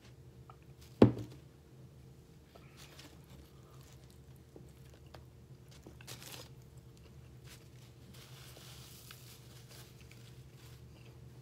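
A stemmed drinking glass set down on a tabletop with one sharp knock about a second in, then soft crinkling of a foil-lined sandwich wrapper and rustling of a paper napkin being handled.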